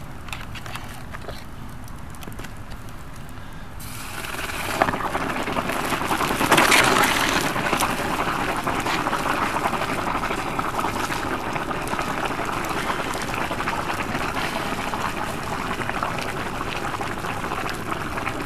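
Water in a plastic bucket boiling up hard as fire-heated quartzite cobbles go in: a sharp tick about four seconds in, then a loud hissing, bubbling boil. It is loudest around seven seconds, then holds as a steady boil.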